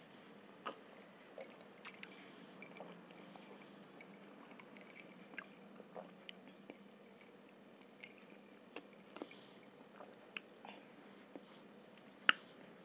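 Quiet sipping of cola with ice from a glass mug: scattered soft clicks and small mouth sounds, with one sharper click near the end.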